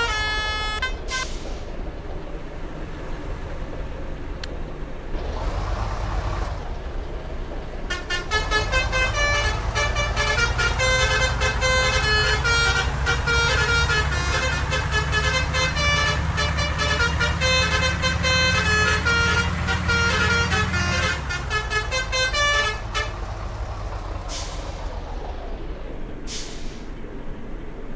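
A bus's 'telolet' musical air horn plays a quick tune of changing notes for about thirteen seconds, starting about a third of the way in, over the steady drone of the bus's engine. The previous horn tune cuts off about a second in, and two brief sounds come near the end.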